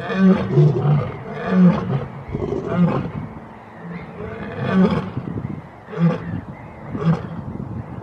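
Lion calling: a series of short, deep grunting calls, one every second or two.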